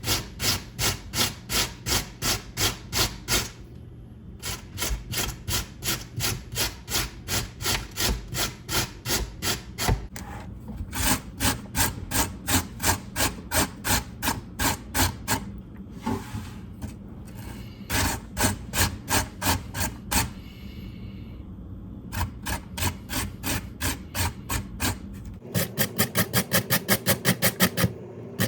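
Raw potato being grated by hand on a grater: steady rasping strokes, about three a second, broken by a few short pauses. Near the end the strokes quicken to about five or six a second.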